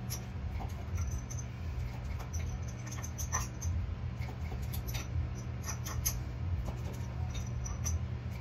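Plastic cupping cups and their hand-pump gun worked on bare skin: a scatter of short, high squeaks and clicks as the cups are pumped and set, over a steady low hum.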